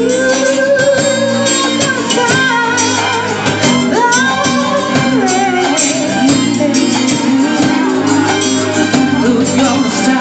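Live band playing a pop-rock ballad, with a singer holding long notes that slide up and down over guitar, bass and drums.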